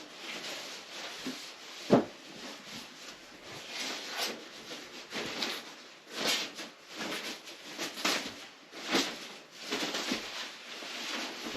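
Rustling and irregular knocks of a curved computer monitor being handled, with one sharp knock about two seconds in.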